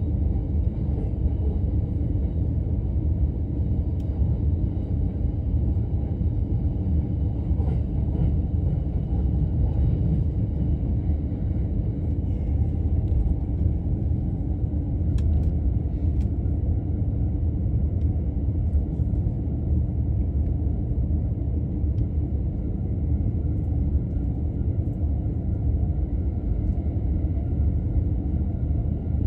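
Steady low rumble of a commuter electric train running at speed, heard from inside the passenger car: wheels on the rails and running noise, with a few faint clicks about halfway through.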